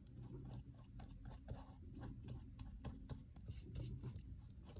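Faint handling noise: many small clicks and light scratching, rubbing sounds, as of a small craft object being handled and turned about close to the microphone.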